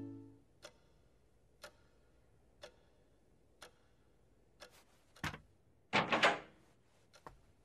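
A clock ticking once a second in a quiet room, then a soft thump and a louder rustling sound about five to six seconds in.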